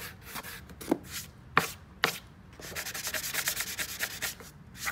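A hand rubbing briskly back and forth along the rail of a Surftech Softop-CP soft-top surfboard, scuffing the repaired edge where the painted bottom meets the EVA deck, with a few sharp taps in between.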